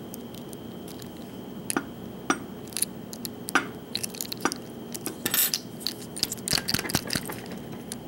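Irregular small clicks and scrapes of a small tool prying at the bottom plate of a Master Lock 6121 padlock, with a quick cluster of clicks about five seconds in and more a little later.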